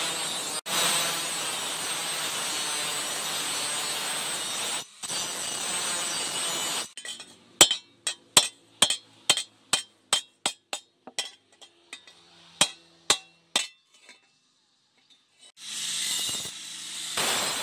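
About fifteen sharp, ringing metal-on-metal strikes, roughly two a second, typical of a hammer on steel at a blacksmith's anvil. A steady rushing noise runs for the first half and comes back near the end.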